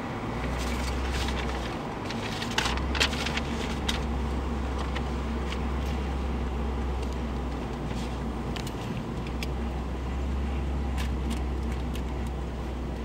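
Car cabin noise from a car driving slowly: a steady low engine and road rumble that dips briefly twice. A few sharp clicks sound about three seconds in.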